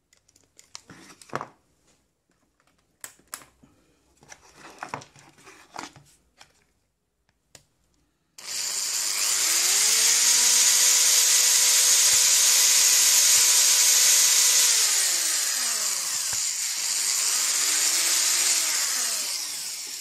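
Small handheld electric drill boring a hole through the plastic casing of a Bluetooth speaker for a new charging port. Its whine rises as it spins up about eight seconds in, holds steady for about six seconds, winds down, then runs up and down again in a shorter second pass. Before it, a few clicks and scrapes of the casing being handled.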